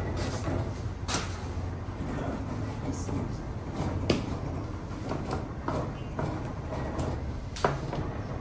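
Steady low rumble of a bakery's bread oven burner, with several sharp knocks and clatters as trays and dough are handled, the loudest about four seconds in and again near the end.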